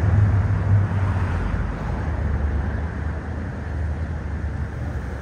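Low rumble of road traffic, loudest at the start and fading over the first couple of seconds as a vehicle moves away, then a steady low background rumble.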